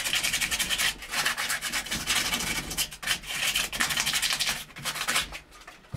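Sandpaper rubbed back and forth by hand on a pipe in quick, steady strokes, cleaning the pipe's surface; the rubbing stops shortly before the end.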